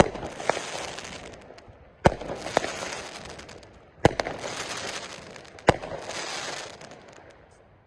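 Fireworks going off: a sharp bang about every two seconds, each followed by a crackling hiss that fades away.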